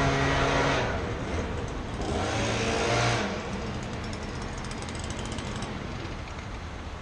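Small handheld leaf blower engine running at high revs, throttled back about a second in, revved briefly again around two to three seconds in, then dropping to a lower, even noise.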